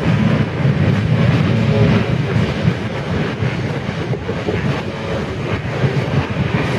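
A full field of motocross bikes running together at the starting gate, a dense low rumble of many engines that swells and eases without stopping.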